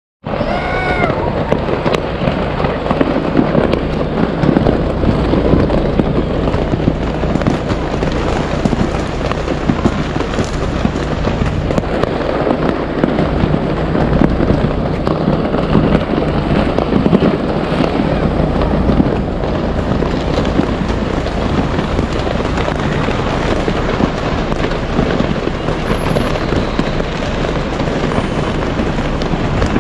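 Many fireworks going off at once in a dense, continuous barrage of bangs and crackles.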